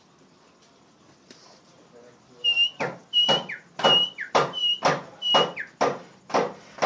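Oriental magpie-robin (kacer) singing a loud run of sharp, repeated whistled notes, about two a second, starting about two and a half seconds in.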